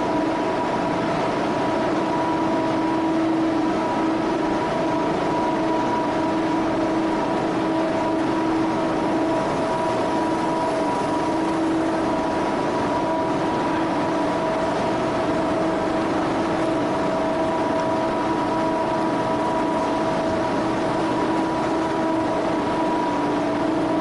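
Industrial vacuum loader running steadily while its hoses suck up material: a constant noise with a steady whine made of several tones.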